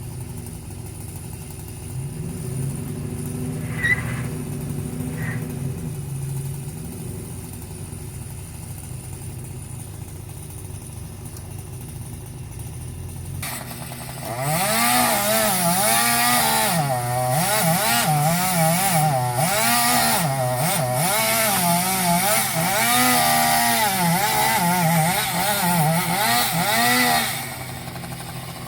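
Two-stroke chainsaw idling, then opened to full throttle about halfway through and cutting for about thirteen seconds, its pitch dipping and rising as the chain bogs and frees in the wood, before it drops back toward idle near the end.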